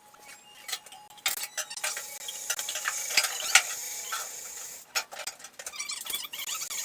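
Irregular crackling sizzle of a MIG welder laying tack welds on steel brackets, with a steadier stretch of hiss from about a second in until about five seconds in, then stop-start crackles.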